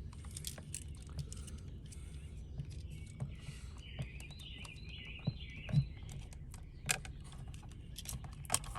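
Light clicks and taps of hands working the wires and screw terminals of an electrical outlet, with a few sharper clicks near the end. A bird chirps a quick run of short notes in the middle.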